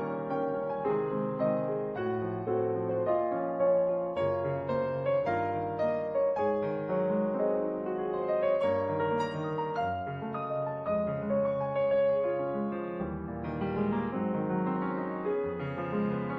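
Solo piano music playing: a melody over changing bass notes, with no speech.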